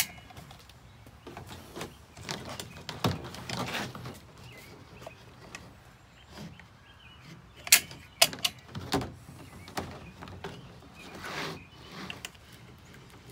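Scattered clicks, knocks and light rustling of stiff vinyl being handled while caulk is squeezed from a tube into the channel of a vinyl siding outside-corner piece, with a few sharper taps, the loudest about eight and nine seconds in.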